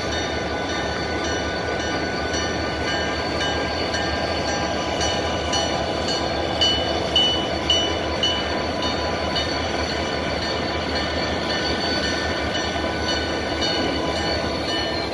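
Florida East Coast EMD GP40-2 diesel locomotives rolling slowly past, engines running steadily with thin high ringing tones over them. A few short, high squeaks come about halfway through.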